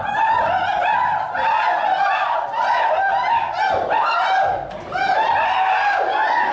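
Many high-pitched voices laughing and shrieking together, with a brief lull about four and a half seconds in.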